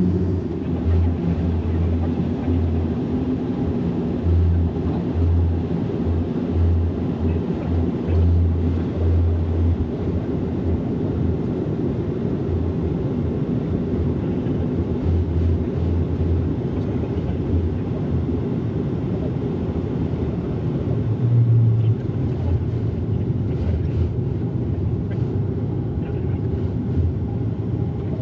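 Cabin drone of a turboprop airliner's engines and propellers, heard from inside the cabin: a steady low hum with a throb that swells and fades.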